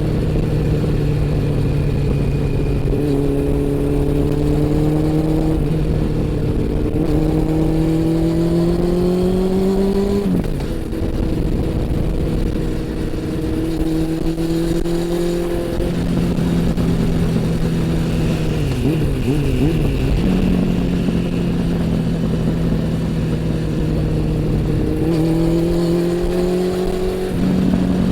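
Honda CB400 Super Four's inline-four engine and exhaust under way, the engine note climbing in long pulls under throttle three times. After the first pull, about a third of the way in, the note drops sharply, and it holds steady between the pulls.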